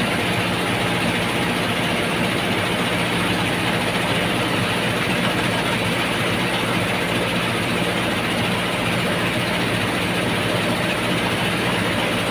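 Small rubber-roll rice mill running steadily while milling rice: an even machine drone with a continuous hiss of grain, unchanging throughout.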